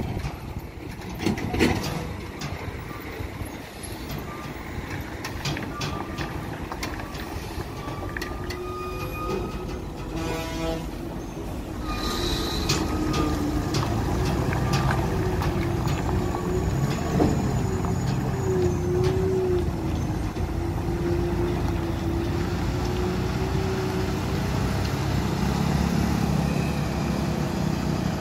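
Heavy diesel tanker semi-trailer truck working slowly round a hairpin bend, its engine rumbling steadily and getting louder about halfway through, with a whine that wavers in pitch. A short hiss, typical of an air-brake release, comes about twelve seconds in.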